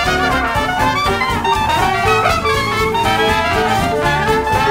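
Background music: upbeat brass-led jazz with a steady beat.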